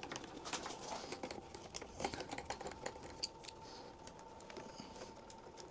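Faint, irregular light clicks and taps of hands and a tool working at a motorcycle's plastic side fairing and its fastening screws. A faint steady hum joins in about two seconds in.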